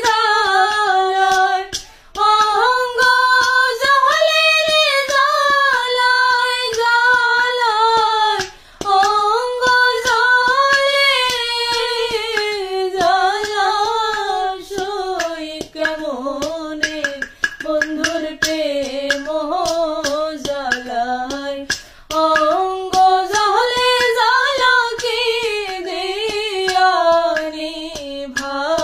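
A woman singing a Bengali song in long, wavering held notes. She breaks off briefly for breath several times, over a light clicking beat.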